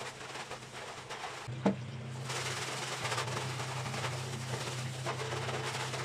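A single sharp knock, then steady scrubbing and rubbing on a stainless steel gas stove top, over a low steady hum.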